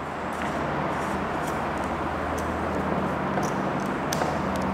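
Steady background hum and hiss, with a few faint light clicks.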